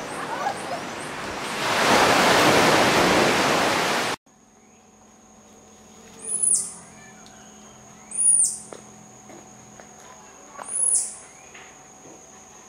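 Surf washing on a beach, swelling about two seconds in, then after a sudden cut three loud, sharp, high-pitched chirps about two seconds apart over a steady thin insect drone.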